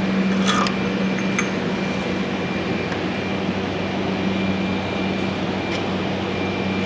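Steady hum of a shop heater fan blowing, with a low even drone, and a few faint light clicks from tools working on the oil filter.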